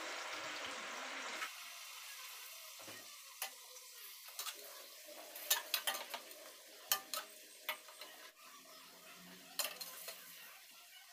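A metal spoon stirring pork chops in soy-sauce marinade in a stainless steel pot, with scattered clinks and scrapes against the pot. A soft sizzling hiss of the sauce heating toward a boil fades in the first second or so.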